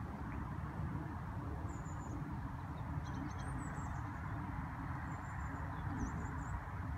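Steady low outdoor rumble of wind, with faint, high bird chirps a few times.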